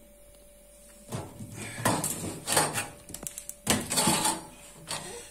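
Upright freezer's plastic drawer being pulled open: a run of sliding, scraping and knocking noises starting about a second in, with a sharp click near the middle.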